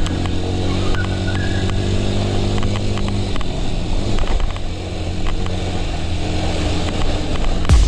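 Dirt bike engine running at steady revs, its note fading out about three seconds in, with scattered short knocks and clatter, and a heavy thump at the very end.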